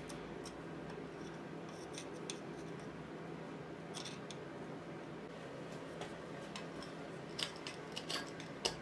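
Faint, scattered clicks and scrapes of a screwdriver tip prising the remains of an old figure-of-eight cylinder liner gasket off the aluminium engine block, with a few louder clicks near the end.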